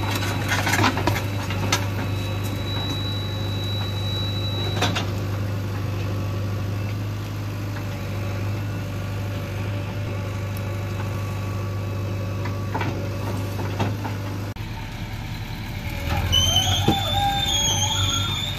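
JCB 3DX backhoe loader's diesel engine running steadily while the backhoe digs, with a few sharp knocks of the bucket against rubble and broken concrete. A wavering higher-pitched sound comes in near the end.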